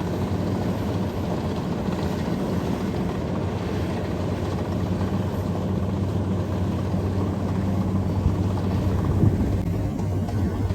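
Kubota DC93 rice combine harvester running steadily under load, its diesel engine and threshing machinery making a continuous drone.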